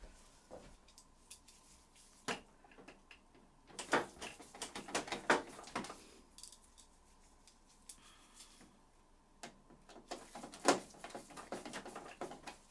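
Small clicks, taps and scrapes of a screwdriver and hands working on the plastic rear cover of an Epson WF-R5690 printer as it is screwed back in place. A single knock comes about two seconds in, then two busier runs of clicking, one in the middle and one near the end.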